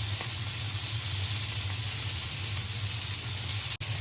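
Lobster tails sizzling on a Tembo Tusk skottle pan: a steady frying hiss with a low hum underneath, cut by a brief dropout near the end.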